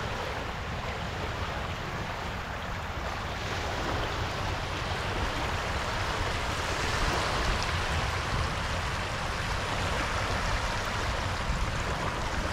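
Steady rushing noise, with a low buffeting rumble of wind on the microphone.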